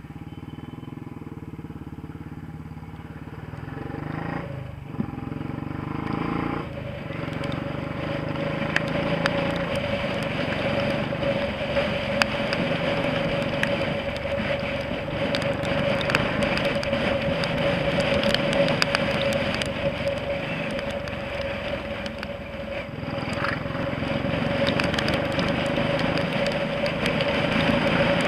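Royal Enfield single-cylinder motorcycle pulling away and riding in traffic, engine and wind noise rising in loudness as it gathers speed, with a steady whine over the engine sound and brief dips about five and seven seconds in.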